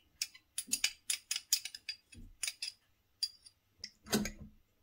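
Metal spoon stirring a thin liquid dressing in a glass bowl, clinking against the glass in quick, uneven taps, with a louder knock about four seconds in.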